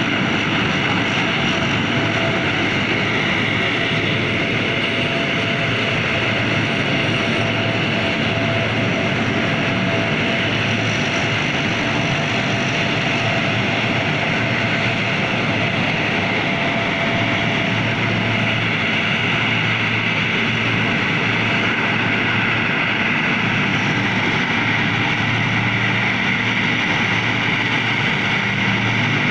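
Lockheed C-130 Hercules' four turboprop engines running steadily, a continuous drone with a thin whine that fades out about halfway through.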